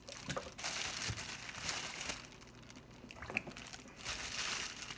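Plastic butcher's bag crinkling and rustling as raw beef bones are pulled out of it and set into a slow cooker, in two spells, with a few light knocks.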